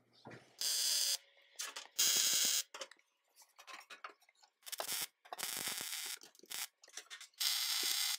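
MIG welder arc crackling in about five short bursts of half a second to a second each, as plug welds are laid through a new steel floor pan into the Beetle's body with the welder turned up hot.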